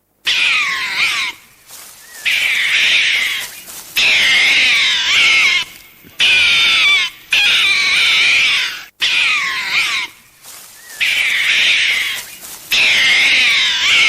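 An animal's loud, high-pitched calls with wavering pitch, about eight of them, each one to two seconds long with short gaps between.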